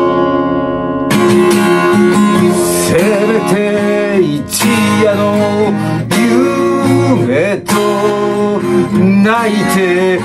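Capoed Fender cutaway acoustic guitar strummed in a folk accompaniment. From about three seconds in, a wordless sung melody with vibrato runs over it.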